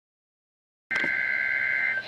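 NOAA Weather Radio SAME header burst: a loud burst of digital data tones on two close pitches, starting abruptly out of silence about a second in and stopping at the end. It is the coded header that opens an Emergency Alert System Required Weekly Test.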